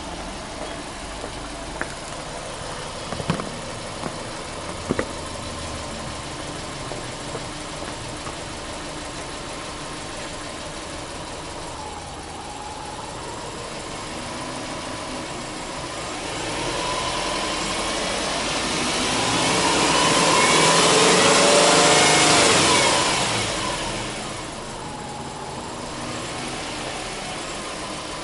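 Subaru Impreza 1.5i-L's 1.5-litre flat-four (boxer) engine idling steadily with the bonnet open. There are a few light clicks about three to five seconds in. Past the middle the sound swells louder for several seconds, then settles back to idle.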